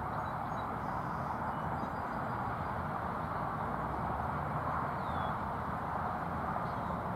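Steady outdoor background noise, an even hiss with no distinct events, and a faint short falling whistle about five seconds in.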